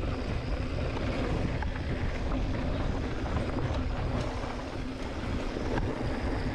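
Mountain bike rolling fast down a dirt singletrack: steady wind rumble on a chest-mounted camera's microphone, with tyre noise on the dirt and light clicks and rattles from the bike.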